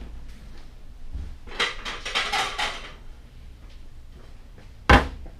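Objects being handled: about a second of rustling, then a single sharp knock near the end.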